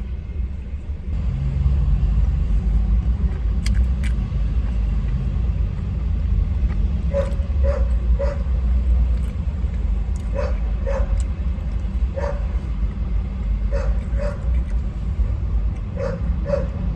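A dog barking repeatedly in the distance in short groups of two or three, starting about halfway through, over a steady low rumble.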